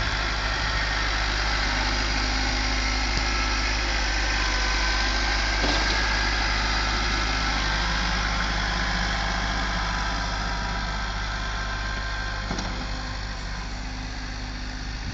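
Kubota tractor engine running steadily, getting a little quieter over the last few seconds.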